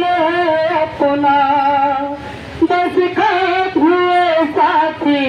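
A man singing a Hindi song into a handheld microphone, drawing out long held notes, with a short pause about two seconds in.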